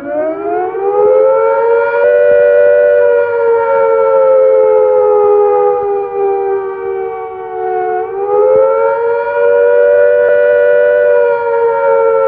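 Civil defence air attack warning siren wailing, several notes sounding together. Its pitch rises at the start, slowly falls, then rises again about eight seconds in: the rising-and-falling warning of an imminent attack.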